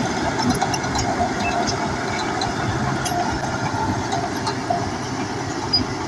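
Bulldozer's diesel engine running steadily, with scattered light clicks and clanks over it.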